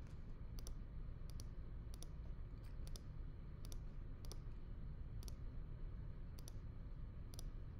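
Computer mouse clicking: about ten sharp clicks at uneven intervals, several as quick double clicks, over a low steady room hum.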